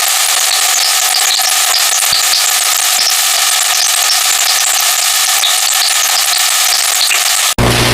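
Steady mechanical whirring of running machinery, which cuts off abruptly near the end.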